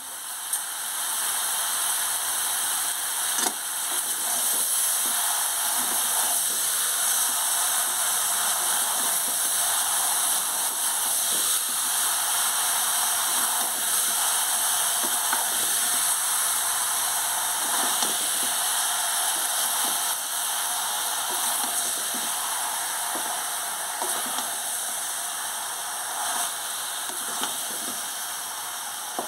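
Chicken pieces with capsicum and onion sizzling steadily in a pan while being stirred with a wooden spatula, with irregular scrapes and knocks of the spatula through the sizzle.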